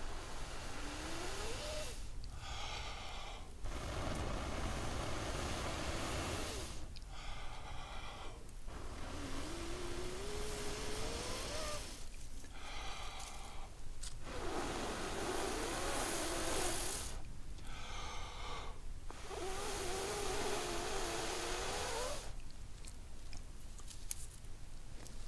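A person blowing into a smouldering tinder bundle to bring a char-cloth ember up to flame: five long, steady blows with a quick breath drawn between each, some with a faint rising whistle.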